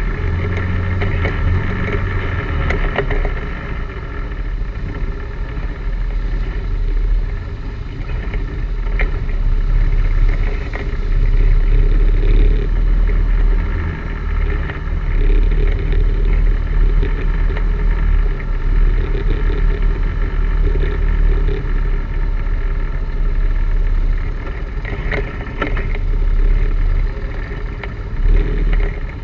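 ATV engine running as the quad climbs a rough trail, its loudness rising and falling with the throttle. A few sharp knocks come from the machine jolting over rocks and roots.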